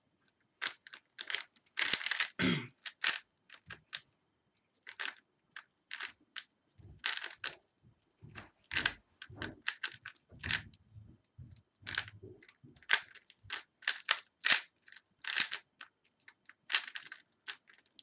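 A 3x3 Rubik's cube being turned fast in a timed solve: quick, irregular plastic clicks and clacks of the layers snapping round, coming in flurries with short pauses between them.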